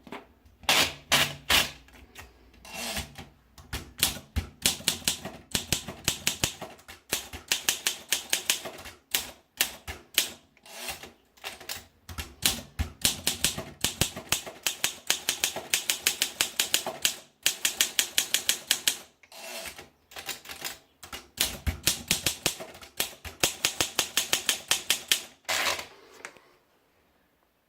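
Olympia SM2 portable manual typewriter being typed on: quick runs of sharp key strikes in bursts, with short pauses between them. The typing stops about a second before the end.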